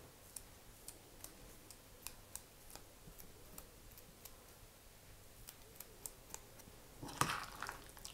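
Chives being cut for egg salad: faint, sharp snips or chops every third to half second, with a short louder clatter near the end.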